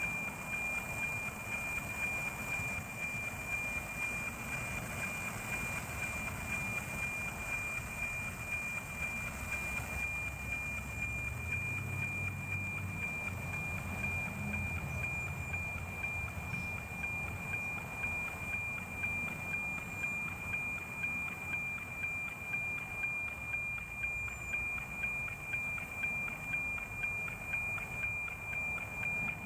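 NOAA 19 weather satellite's APT image signal, received and FM-demodulated by an RTL-SDR receiver: a steady high whistling tone over static hiss, with a regular tick-tock beat about twice a second from the image-line sync pulses.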